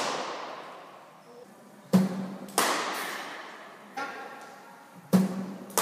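Hard cricket ball impacts in an indoor net hall, each with a long echo. They come in pairs about half a second apart, twice, and the first of each pair has a deeper thud.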